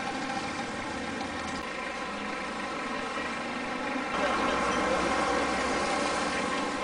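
Vehicle engines running steadily, a constant droning tone, with a deeper, louder rumble joining about four seconds in.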